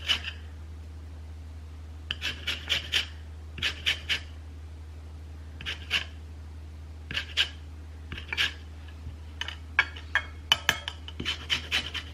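A lemon being zested on a flat stainless-steel hand grater: short rasping scrapes in quick runs of two to four strokes, with pauses between runs, over a low steady hum.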